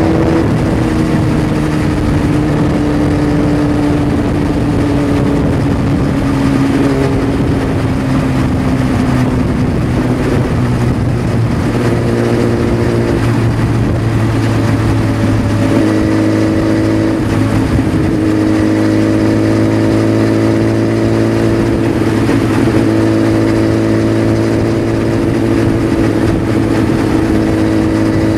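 Engine of a vehicle travelling at highway speed, under steady wind and road noise. Its pitch slides slowly down over the first ten seconds, changes a few times, then creeps up toward the end.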